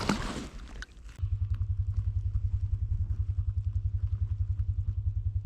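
A small engine idling steadily in a fast, even low pulse, starting about a second in after a brief rustle.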